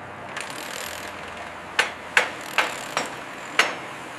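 Construction-site ambience: a steady background noise with a series of sharp knocks, five of them at uneven intervals starting about two seconds in.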